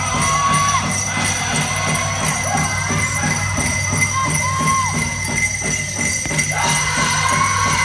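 Powwow drum song: a steady drumbeat under high held singing voices, with bells jingling along with the beat.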